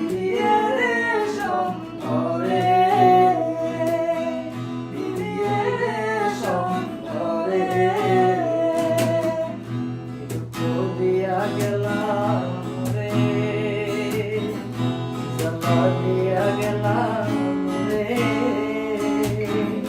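Background music: a Bengali folk song, with a gliding melodic vocal line over plucked guitar accompaniment.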